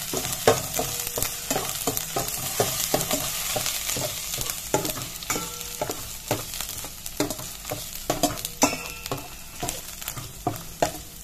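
Metal spoon scraping and clinking repeatedly against a stainless steel pot while stirring aromatics frying in sizzling hot oil.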